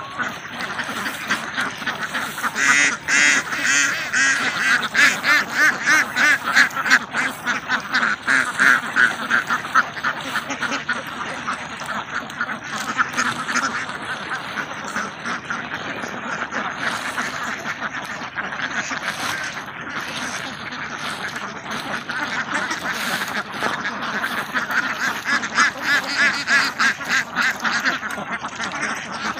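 A large flock of domestic ducks quacking continuously, a dense chorus of rapid quacks that grows loudest a few seconds in and again near the end, as the birds crowd toward the feed.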